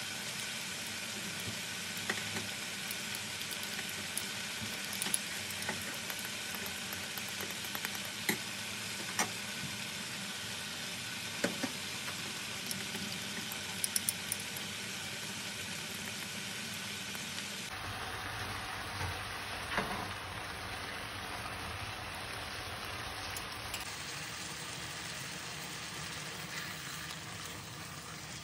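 Chicken livers and onions sizzling steadily in a frying pan, with a few sharp clicks of a metal spoon against a ceramic bowl as tomato paste is stirred into water.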